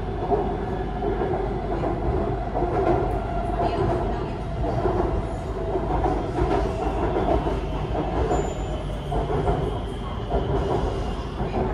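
BTS Skytrain running on its elevated track: the steady, even running noise of the train in motion.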